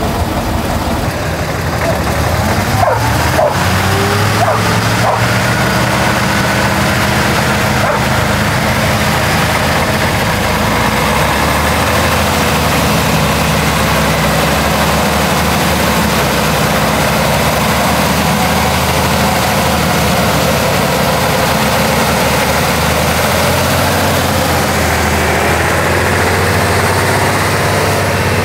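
Heavy off-road truck engine running steadily, a continuous low drone. A few short sharp sounds come about three seconds in.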